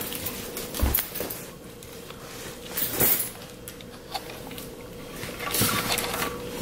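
Three short bursts of clinking and rustling from things being handled, about a second in, about three seconds in and near the end, over a steady faint hum.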